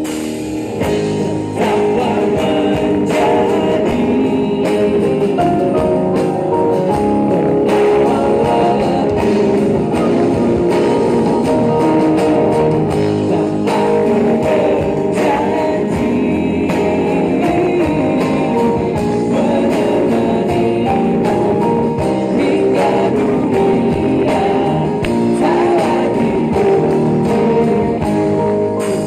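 Live pop band playing amplified through PA speakers: electric and acoustic guitars, bass, drums and keyboards, with a man singing the lead.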